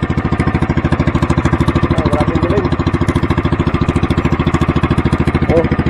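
Bangka outrigger boat's engine running steadily under way, a fast, even putter.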